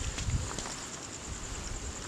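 Night insects chirping, a steady high trill, with a few footsteps and rustling in the first half second.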